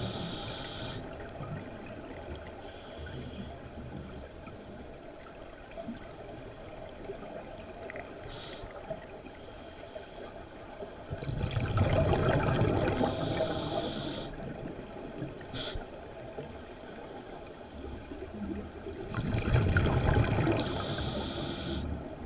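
Underwater sound of a scuba diver breathing through a regulator: exhaled bubbles rush out in bursts, the loudest starting about 11 and 19 seconds in, with short hisses in between.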